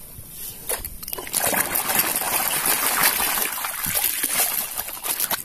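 Plastic toy fire engine being swished and dunked by hand in muddy water to wash the mud off: continuous splashing and sloshing that builds about a second in.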